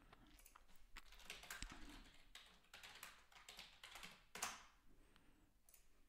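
Faint computer keyboard typing: a run of quick key clicks, with one sharper click about four and a half seconds in.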